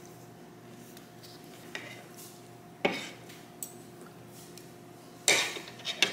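Metal fork and spoon clinking and scraping against a plate of rice and beans while eating: a few sharp clinks, the loudest a little before the end.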